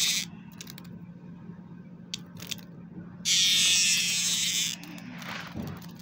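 Male superb dog day cicada (Neotibicen superbus) buzzing loudly while being handled. A buzz cuts off just after the start, and a second one comes about three seconds in and lasts about a second and a half.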